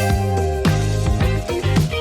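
Upbeat background music with a steady beat, bass and plucked guitar.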